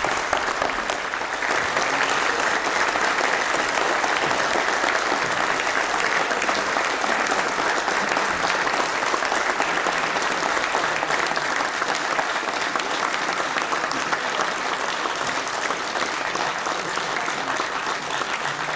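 Sustained applause from a chamber full of parliamentarians, many hands clapping at an even level without a break.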